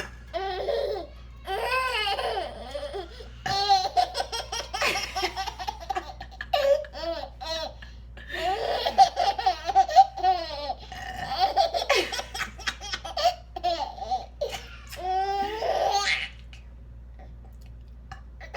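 Baby boy laughing in repeated high-pitched fits and belly laughs that stop about three seconds before the end.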